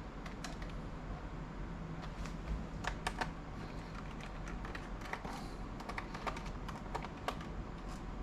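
Scattered light clicks and taps of small plastic and metal parts as a Lenovo ThinkPad E550 laptop is taken apart by hand, with a cluster of clicks about three seconds in and more in the second half.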